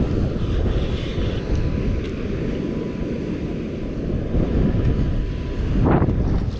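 Wind buffeting the microphone on an open boat, a steady low rumble, with a short louder burst about six seconds in.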